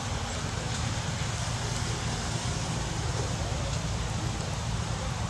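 Steady low rumble with a hiss of outdoor noise, level throughout, with no distinct event.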